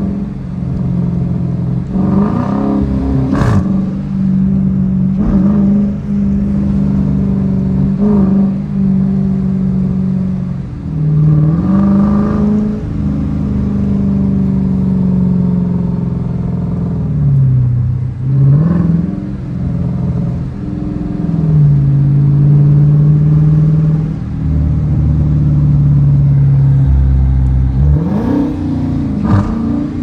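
Dodge Challenger R/T's 5.7-litre Hemi V8 heard from inside the cabin while cruising, a steady low drone whose pitch drops and climbs back several times as the driver eases off and gets back on the throttle.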